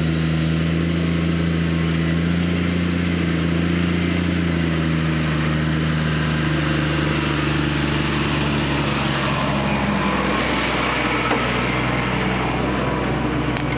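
JCB Fastrac 3230 tractor's diesel engine running steadily under heavy load while pulling a six-furrow plough through hard-packed ground. Its note dips slightly partway through and turns rougher near the end, with a couple of faint clicks.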